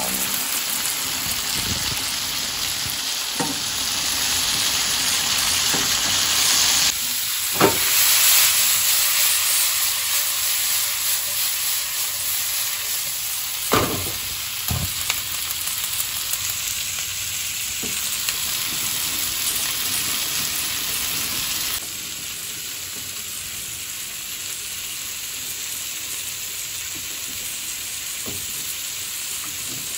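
Sliced sausage, green peppers and onions sizzling in a frying pan as they are stirred with a wooden spatula, with a few sharp knocks of the spatula against the pan. About two-thirds of the way through, the sizzle drops to a quieter steady hiss.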